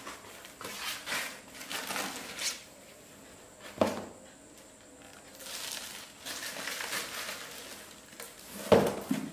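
Foam packing sheets and plastic wrap around a digital bathroom scale rustling and crinkling as they are handled, with a sharp knock about four seconds in and another near the end.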